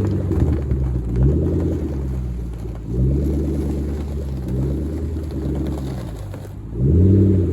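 MG X-Power SV's V8 engine running and revving up three times, about a second in, near three seconds and near the end, settling back between each rise.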